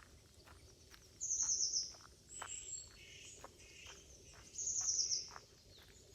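A songbird singing two short, fast, high trills about three seconds apart, with softer, lower calls in between.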